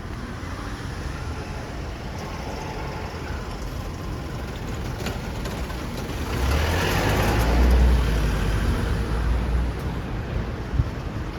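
Road traffic, with one vehicle passing close by: a low rumble swells about six seconds in and fades after about three seconds. A single sharp knock comes near the end.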